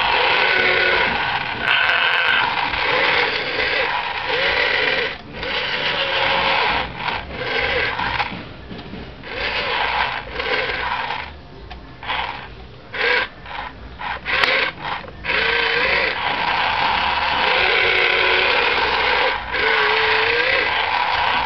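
Electric motors of a radio-controlled toy wheeled excavator whining as the boom, arm and bucket move through the sand, the pitch wavering up and down. The motors stop and start with short pauses, most often in the middle.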